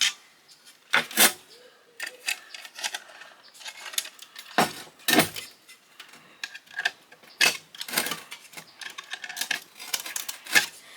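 Irregular metallic clicks and clinks from a Badger garbage disposal being taken apart with hand tools, with a few louder knocks about a second in and near the middle.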